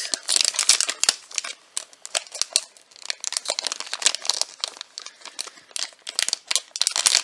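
Blind-box packaging crinkling and rustling in the hands as it is opened, a dense run of quick crackles.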